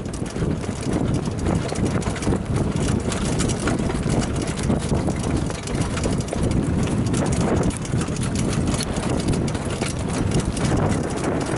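A standardbred trotter's hoofbeats and the rattle of the cart it pulls, under a steady rush of wind on the microphone.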